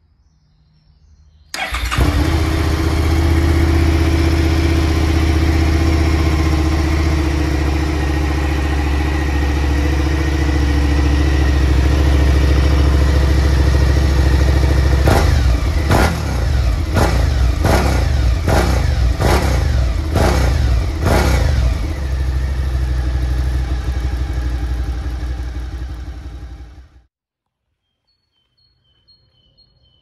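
2016 Suzuki SV650's 645 cc V-twin engine through its stock silencer. It comes in suddenly about a second and a half in and idles steadily. About halfway through it is blipped around eight times in quick succession, then settles back to idle, and the sound cuts off abruptly near the end.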